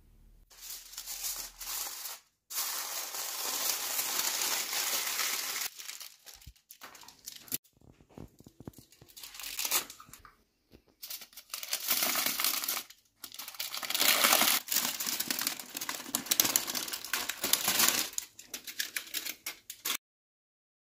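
Aluminium foil crinkling as it is handled over a baking dish, in several long spells with short pauses between, stopping suddenly near the end.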